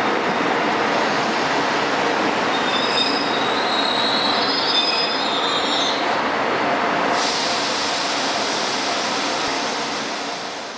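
Intercity passenger coaches rolling slowly past on the rails with a steady rumble. Wheels squeal in high thin tones for a few seconds in the middle, then a brighter hiss takes over and the sound fades near the end.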